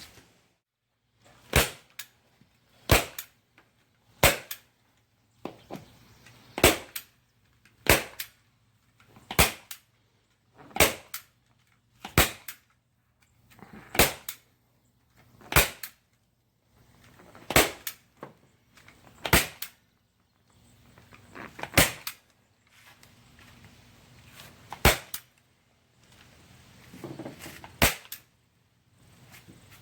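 Staple gun driving staples into the wooden seat base one at a time, a sharp snap about every second and a half.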